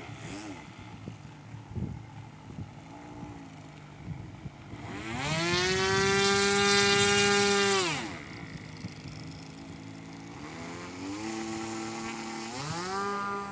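Engine of a radio-controlled Cessna 210 model airplane running, throttled up with a rising whine about five seconds in, held at high revs for a few seconds, then throttled back down. It is throttled up again twice toward the end.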